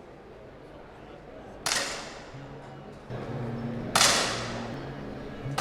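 Two 10m air pistol shots, about two seconds apart, each a sharp pop with a short echo that fades over about a second, fired by finalists during the competition series.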